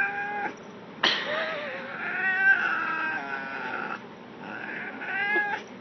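Domestic cat yowling angrily while being handled: a short call at the start, then one long drawn-out yowl of about three seconds, then another shorter one near the end.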